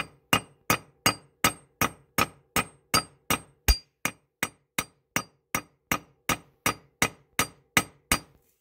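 Ball-peen hammer striking a metal wedge set in the top of a half hatchet's head, to seat the wedge and tighten the new hickory handle in the eye. The blows come steadily, nearly three a second, each a sharp metallic tap with a brief ring, and they stop just before the end.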